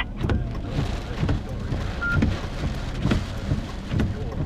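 Storm noise of wind and rain: a rushing hiss that swells twice, over irregular low thumps of gusts buffeting the microphone. A short high beep sounds about two seconds in.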